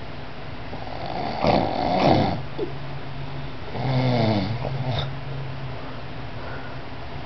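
A child snoring loudly in sleep: two loud snores about two seconds apart, the second with a buzzing pitched tone that wavers up and down.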